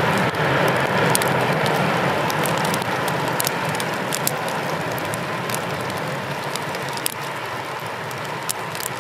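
Boeing 777 freighter's twin GE90 turbofans on final approach: a steady jet roar with a whine in it, fading gradually as the aircraft moves away. Scattered sharp clicks run through it.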